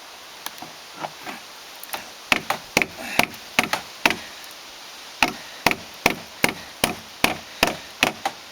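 Hammer blows on steel, a few light taps and then steady hard strikes about two a second, driving a tool wedged in at the car door's mounting to knock the door loose.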